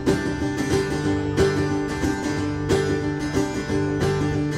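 Acoustic guitar strummed in a steady rhythm, an instrumental passage of a folk song with no singing.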